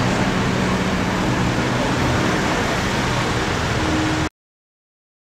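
Road traffic in a jam: the engine of a coach close by and of queued cars running steadily, with a few low steady tones over an even noise. The sound cuts off suddenly about four seconds in.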